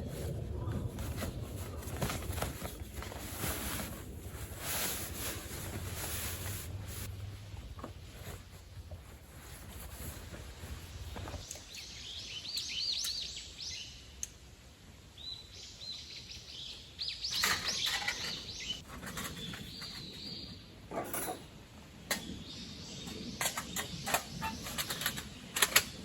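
Small birds chirping in short repeated trills from about a third of the way in, over scattered knocks, clicks and rustling from camp gear being handled during setup.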